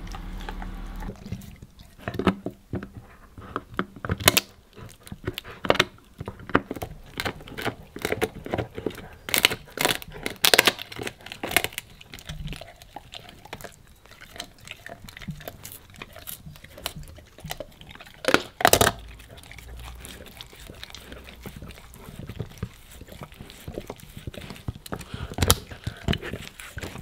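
A Labrador retriever gnawing on a large, hard chew treat: irregular crunches and cracks as its teeth break into it, a few of them much louder snaps.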